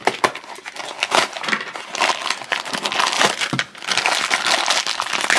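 Cardboard blind box being handled and opened, then a thin plastic blind bag crinkling as it is squeezed and pulled open.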